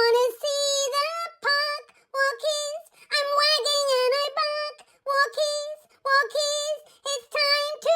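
A high, childlike singing voice, unaccompanied, in short sung phrases with brief gaps between them.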